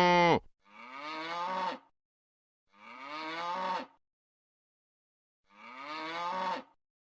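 Cattle mooing: a long, loud moo ends just after the start, then three shorter, quieter moos about two seconds apart, each rising in pitch.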